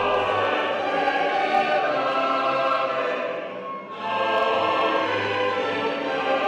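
Choir singing long held notes in a classical style. The singing eases off a little after three seconds, and a new phrase begins at full strength about four seconds in.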